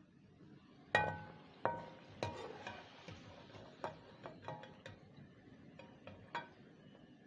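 Slotted metal spatula clinking against an aluminium karahi while lifting fried potato chips out of the oil: three sharp, ringing clinks in the first two and a half seconds, then a run of lighter taps.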